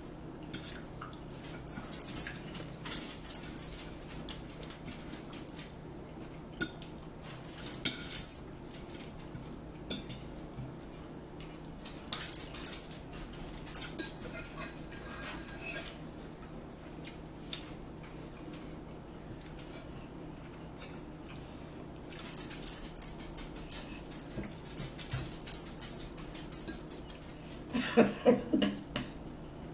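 Metal forks clinking and scraping on plates in scattered bursts as two people eat. A dog whimpers briefly near the end.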